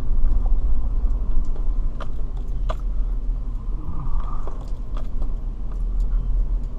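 A car heard from inside the cabin while driving: a steady low road and engine rumble, with scattered light clicks and knocks.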